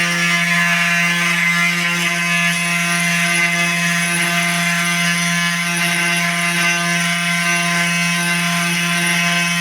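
CNC 3018 desktop engraving machine running: a steady whine from its spindle motor, with a second tone that starts and stops every second or so as the axes move.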